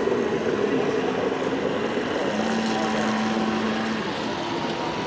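Radio-controlled model boat motor running on the water: a steady whir with a held tone that comes in about two seconds in and fades near four seconds.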